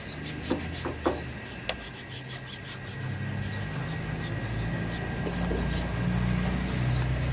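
Flat edge of a plastic body tool rubbed over a vinyl decal's transfer tape, pressing it onto the truck body: a few light taps and quick scraping strokes. A low engine hum grows louder in the second half.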